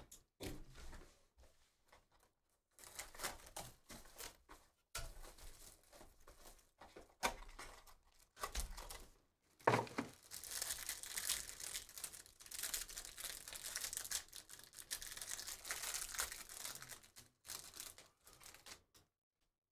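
A trading-card box and its packs being opened by hand. Scattered scrapes and taps of cardboard and packaging come first, then a sharp tear just before ten seconds in, followed by several seconds of crinkling and tearing as the plastic wrap is pulled off a stack of football cards.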